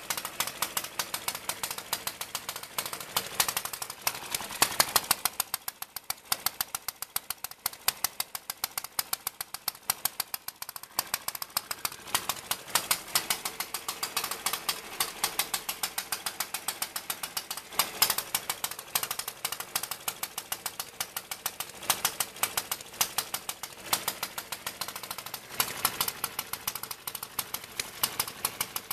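Small homemade single-cylinder four-stroke gasoline engine (1¼-inch bore) running on its own, firing with sharp pops a few times a second. The pops grow softer for several seconds after about five seconds in, then pick up again.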